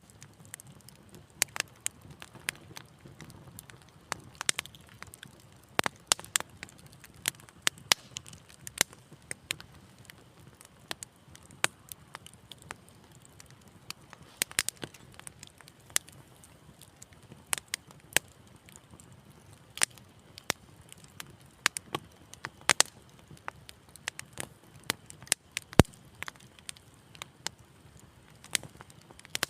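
Fire burning in a fireplace, crackling with sharp, irregular pops and snaps over a soft low rumble of flame.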